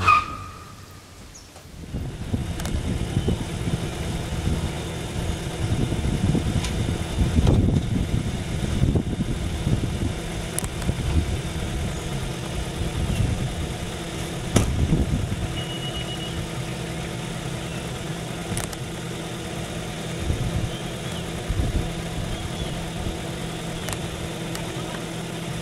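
Minivan engine idling steadily, with louder low swells now and then and a few faint clicks.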